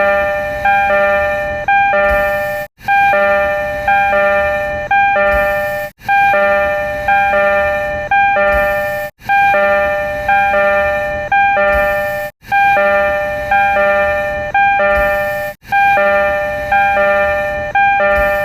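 Tokyo Metro 02 series train door chime in its refurbished-car (B-shu) version: a three-tone electronic chime with the notes about a second apart, repeating back to back about every three seconds with a brief break between repeats.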